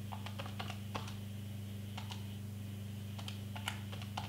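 Keys of a pocket calculator being pressed: a dozen or so light, irregular clicks as a sum is keyed in. Under them runs a steady low electrical hum.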